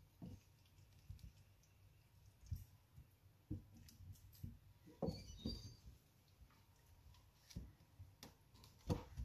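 Faint, scattered knocks and soft squelches of a wooden spoon scooping saucy chicken out of a stainless steel saucepan into a bowl, with irregular light taps of the spoon against the pan.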